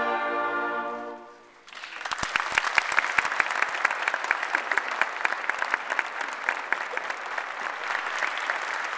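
A concert band's final held chord fades out, and about a second and a half later the audience breaks into steady applause that carries on to the end.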